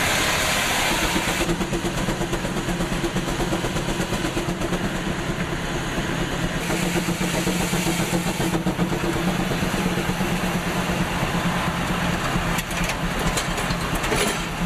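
Sawmill machinery running with a steady engine drone. Two spells of louder hissing noise come through, one at the start and one near the middle.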